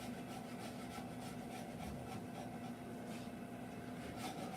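Japanese handsaw cutting timber in faint, quick, regular strokes.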